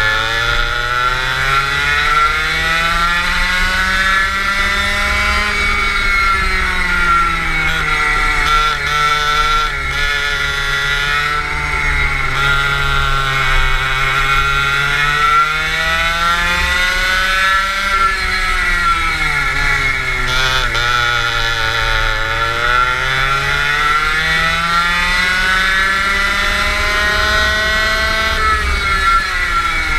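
Go-kart engine heard from on board, its pitch climbing as it accelerates along the straights and sinking as it slows for the corners, three times over. Just before the end the revs drop sharply.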